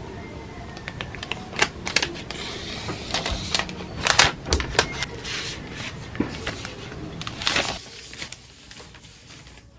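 Handling noise from an iPad being lifted out of its cardboard box and slid out of its protective paper wrap: rustling and scraping with a run of sharp clicks and taps, dying down about eight seconds in.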